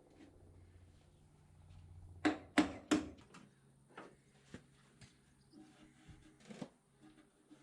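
Sharp knocks and clunks of sheet-metal body parts being handled and pushed into place during a trial fit on a VW T3: three loud knocks in quick succession about two to three seconds in, then lighter scattered taps.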